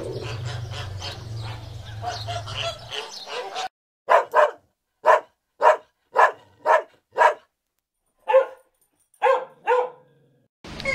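A low, steady rumble for the first few seconds, then a dog barking about nine times in short, separate barks, some in quick pairs.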